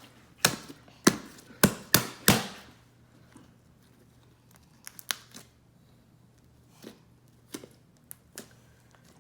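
Homemade glue slime being worked by hand, its trapped air bubbles popping: five sharp pops in the first couple of seconds, then a few fainter pops and clicks.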